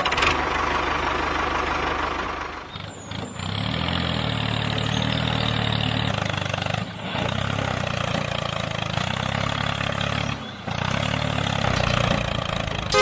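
Truck engine idling steadily, dropping away briefly about three seconds in and then picking up again.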